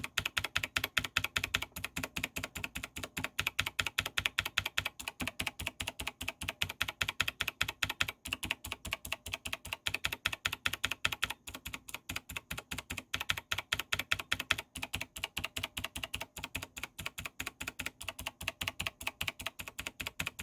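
Mechanical keyboard keys on a Razer BlackWidow Elite with PBT keycaps being pressed over and over in a fast, steady run of clicks. The keys being struck are damped in different ways, one with a soft clear Enhance O-ring, one with a green Razer O-ring and one with no O-ring, so that their sounds can be compared.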